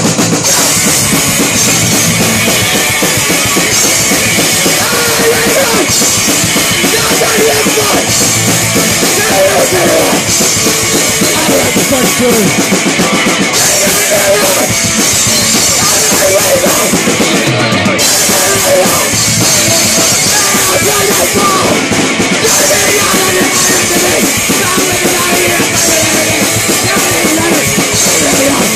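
Punk rock band playing live and loud: drum kit, electric guitar and electric bass, without a break.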